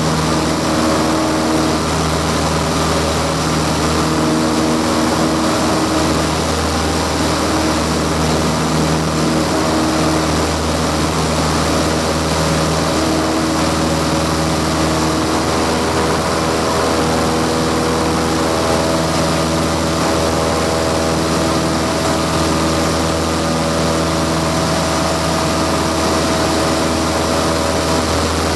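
Light aircraft's piston engine and propeller running at a steady drone in flight, heard from inside the cockpit.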